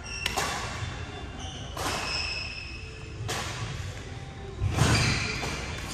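Badminton rackets striking shuttlecocks in a large gym, a sharp hit about every one and a half seconds, with high sneaker squeaks on the wooden court floor after the hits.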